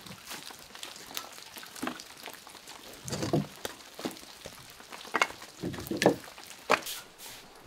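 Split firewood pieces knocking against each other and on wooden porch boards as they are picked up and gathered into an armload: about half a dozen separate wooden knocks over a faint steady hiss.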